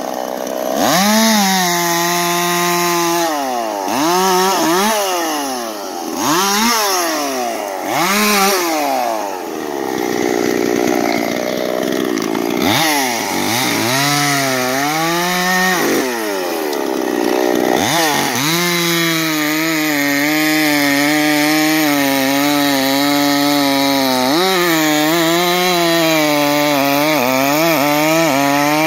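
Dolmar PS-5100S 50cc two-stroke chainsaw with a 20-inch bar and full-chisel chain bucking a hackberry log. For the first ten seconds or so the engine revs up and drops back again and again, then for the last ten seconds it holds steady at high revs under load through the cut.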